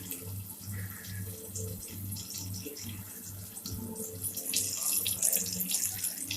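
Coated chicken pieces deep-frying in hot oil: a steady sizzle with many small crackles and pops.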